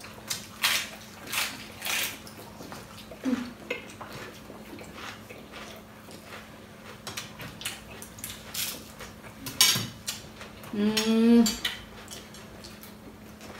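Forks and spoons clinking against plates and serving dishes at a meal, in irregular sharp clinks. A short voiced sound, like a murmur of approval, comes about eleven seconds in.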